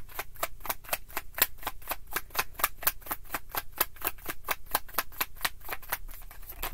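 Tarot cards being shuffled by hand: a quick, even run of sharp card slaps, about six a second, stopping just before the end.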